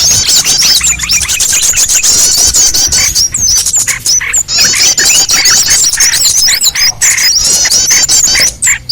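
Small-bird lure recording (suara pikat burcil): many high, rapid chirps and twitters overlapping in a dense, loud chorus, with a short break near the end.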